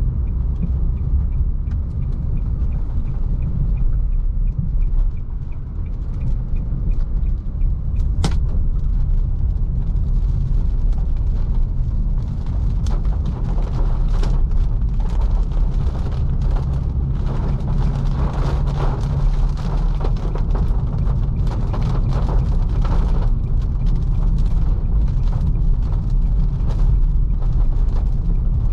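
Cabin noise of a Nissan Leaf electric car driving in the rain: a steady low road and tyre rumble, with a hiss and scattered taps of rain and spray on the car that thicken after about ten seconds. One sharp tap about eight seconds in.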